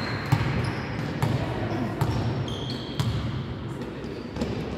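A ball striking a sports-hall floor, five sharp thuds about a second apart, with short high squeaks of shoes on the floor and the echo of a large hall.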